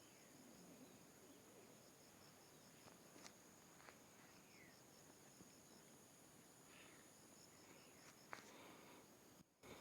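Near silence: faint, steady insect chirping in the background, broken by a few soft clicks.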